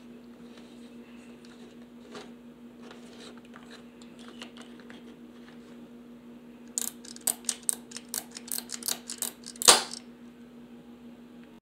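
Hard plastic toy being handled on a wooden table: scattered light taps, then a quick run of sharp plastic clicks and clatters from about seven seconds in, the loudest near ten seconds, over a steady low hum.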